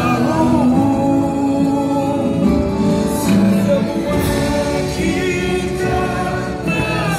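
Music with a choir singing, sustained sung notes over the accompaniment.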